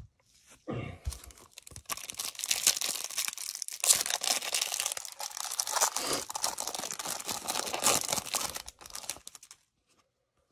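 Crinkly plastic wrapper of a Panini Prizm cello trading-card pack being torn open and crumpled by hand, a dense crackling that runs for about eight seconds and stops near the end.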